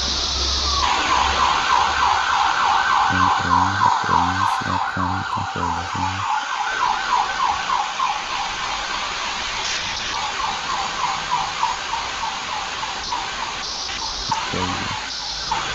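Emergency-vehicle siren in a rapid yelp, its pitch warbling up and down several times a second, fading out near the end.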